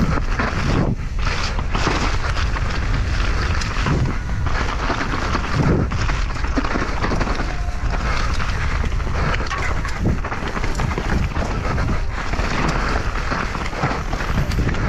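Wind rushing hard over the microphone, with the rattle and knock of a downhill mountain bike ridden fast over rough ground.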